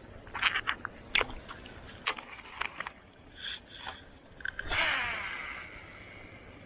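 Small clicks and handling ticks from a Shimano Aldebaran BFS baitcasting reel and rod, then about five seconds in a sudden swish of a cast and the spool whirring as line pays out, fading away.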